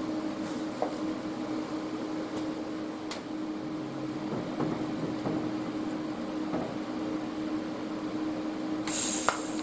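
A steady machine hum with a few faint ticks. About nine seconds in, the Parweld XDI 201 TIG welder's arc strikes on the cast-iron frame and carries on as a sudden high-pitched hiss.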